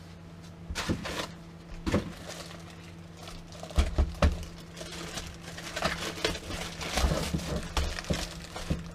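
Unpacking noise: foam packing blocks pulled off a car stereo head unit and its plastic wrap crinkling as it is handled, with scattered knocks and a few dull thumps.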